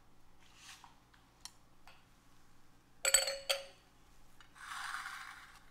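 Quiet kitchen handling sounds: a few faint taps, then a brief ringing clink of kitchenware about three seconds in, and a soft rustle near the end.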